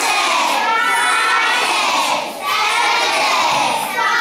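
A classroom of young children calling out loudly together, voices overlapping in rough unison, in phrases broken by a short pause about two seconds in.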